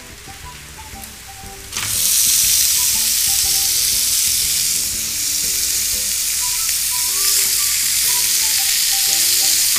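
Marinated chicken pieces hitting hot oil in a kadai with fried onion and curry leaves, starting to sizzle loudly and suddenly about two seconds in and sizzling steadily while a metal ladle stirs them.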